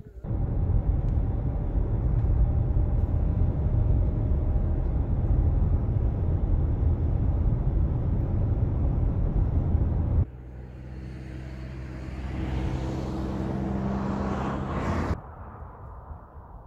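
Car driving on a highway: steady road and engine noise as heard from inside the car. About ten seconds in it changes abruptly to a steady engine hum with a hiss of tyres that grows louder, which then cuts off suddenly.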